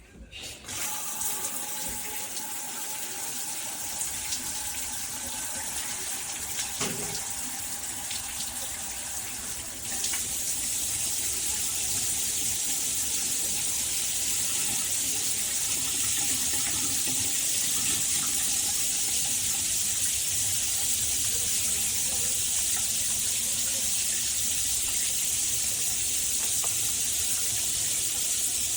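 Shower spray of water running and splashing. It comes on abruptly right at the start, gets louder and hissier about ten seconds in, and then holds steady.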